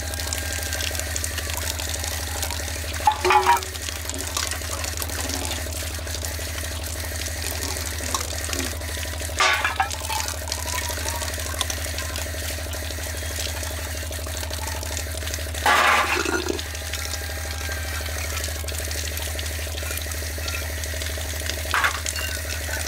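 Water running from an outdoor tap as steel dishes are rinsed under it. Metal plates and bowls clatter against each other and the concrete four times, a few seconds apart; these clatters are the loudest sounds.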